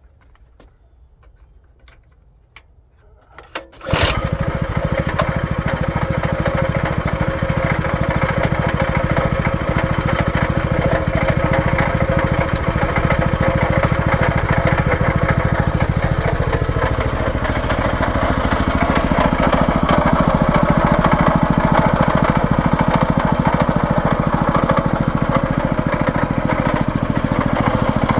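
Brand-new Champion 22-inch rototiller's 212cc single-cylinder engine starting: a few faint clicks, then it catches suddenly about four seconds in and keeps running at a steady, loud level. The owner judges that it is making bad noises.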